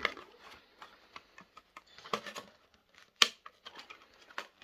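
Snips cutting and cracking away a plastic fan housing: a scatter of sharp clicks and snaps, the loudest about three seconds in.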